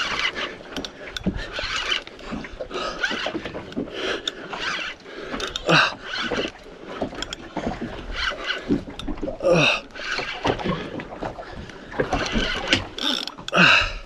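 Fishing reel being wound hard against a fighting fish: irregular mechanical clicks and knocks of the reel and rod, with a few short falling squeaks along the way.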